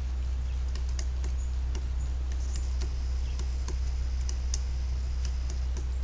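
Pileated woodpeckers pecking, irregular sharp taps at a suet feeder and on bark. The taps come over a steady low hum.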